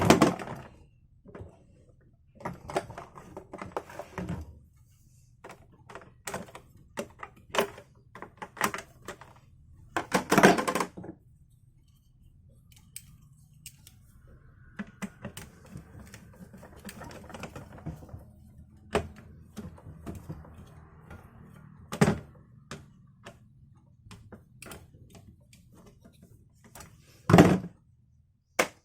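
Clicks and thunks of an electric hot water boiler being handled and tested, with a scattering of sharp knocks, the loudest about ten seconds in and again near the end, over a faint steady hum.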